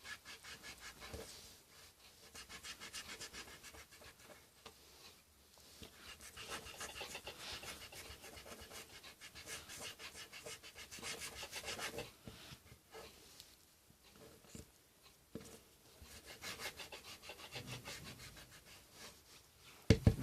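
Rubber eraser scrubbing pencil writing off paper: fast back-and-forth strokes in bouts, with short pauses between. A brief louder sound comes right at the end.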